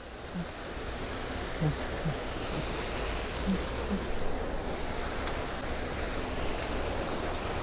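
Creek water rushing steadily, an even watery noise, with a few short low blips in the first four seconds.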